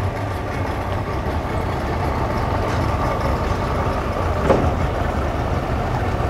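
Engine idling steadily: a low rumble with a faint steady whine on top.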